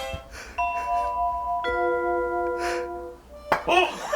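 Harmonica sounding a held chord for about two and a half seconds, sliding down to a lower chord partway through: a player's breath forced through the reeds while being hit. A sharp knock comes near the end.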